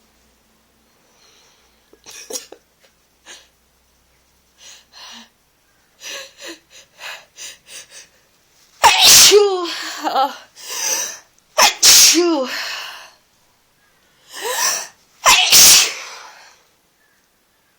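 A person with a head cold sneezing: a few faint sniffs, then a quick run of short catching breaths, then a fit of about five loud sneezes in two bursts, the first around the middle and the last pair near the end.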